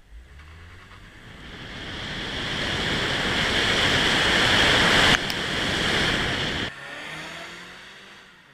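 Wind and road noise on a camera mounted on a moving Mazda sedan, growing louder as the car gathers speed, then cutting off suddenly about two-thirds of the way through. After that, fainter noise of the car approaching along the road, with a low engine note rising.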